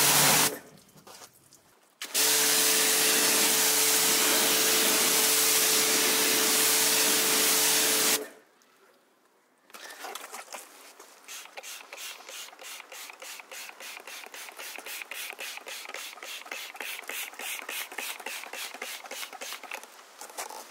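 Pressure washer jet spraying water onto a brake disc and caliper: a loud steady hiss over a steady pump hum. It cuts off briefly, restarts, and stops again. Then comes a fast, even run of short spray hisses, about four a second, as a hand trigger sprayer mists cleaner onto an alloy wheel.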